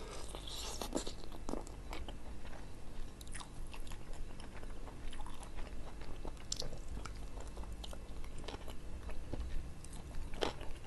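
Close-miked biting and chewing of ayam taliwang, spiced grilled chicken: scattered crunches and crackles as the skin and meat are bitten and pulled from the bone.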